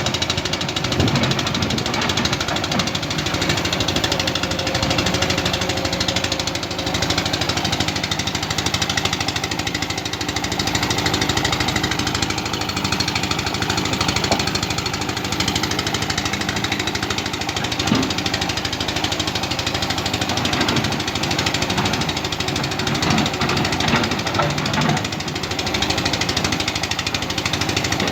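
Excavator's diesel engine running steadily at work, with a fast, even clattering knock and a few louder clunks.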